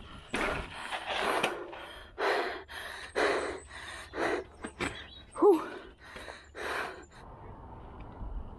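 Heavy breathing of a mountain-bike rider working hard on a dirt pump track: short hard breaths about once a second. One breath about five and a half seconds in is voiced and the loudest. After about seven seconds the breaths give way to a steady faint hiss.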